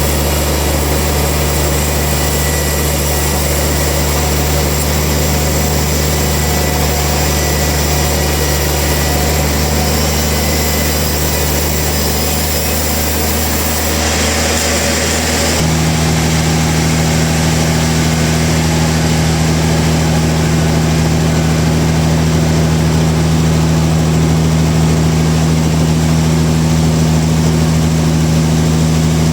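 Sawmill machinery running steadily with a low hum. About fifteen seconds in there is a brief hiss, after which the hum settles onto a stronger, slightly higher note.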